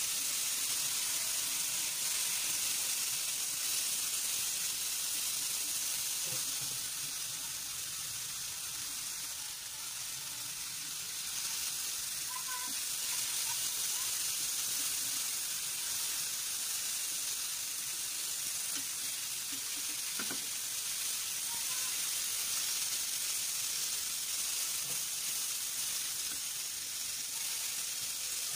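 Longganisa sausages and garlic cloves sizzling steadily in hot oil in a frying pan, with a couple of faint light knocks.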